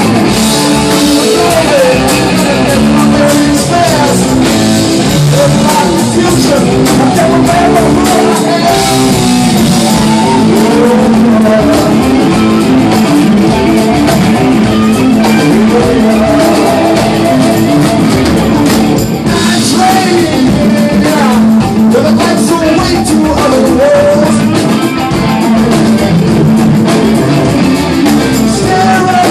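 Live rock band playing a song: electric guitars over bass and drums, with a melodic lead line on top.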